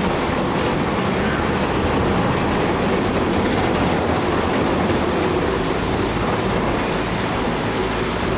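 A steady, dense rumbling noise with no distinct impacts.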